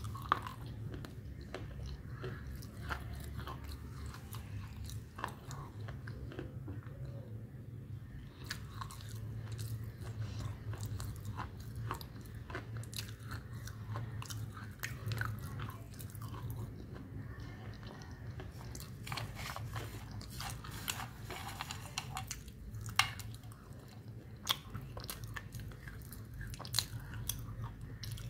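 A person chewing and crunching dry chunks of grey clay, with many short crunchy clicks scattered throughout over a steady low hum.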